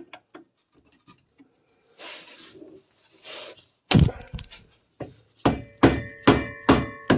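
Hammer blows on metal while trying to break loose seized rear axle bolts: one strike about four seconds in, then five quick strikes roughly two to three a second, each leaving a brief metallic ring.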